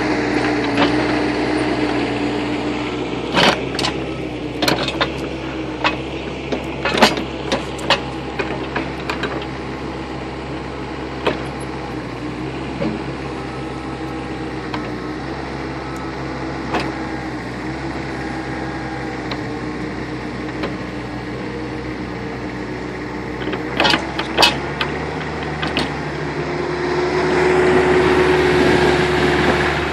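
Cat 305CR mini excavator being operated: its Mitsubishi S4Q2-T four-cylinder turbo-diesel runs steadily with a whine over it. A run of sharp metal knocks and clanks comes a few seconds in, and a few more around the middle and later on. Near the end the machine gets louder and its pitch rises.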